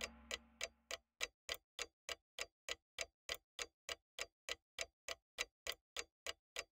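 A steady clock-like ticking, about three and a half ticks a second, with nothing else under it.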